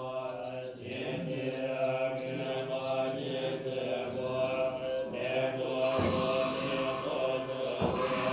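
Field recording of Tibetan Buddhist lamas chanting litanies in a ceremony to drive away evil spirits, a steady group drone, with two sharp percussion strikes about 6 and 8 seconds in.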